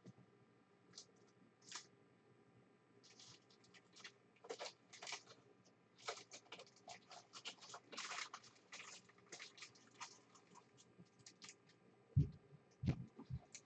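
Faint, scattered rustling and crinkling of foil trading-card pack wrappers being handled, with a few dull knocks near the end.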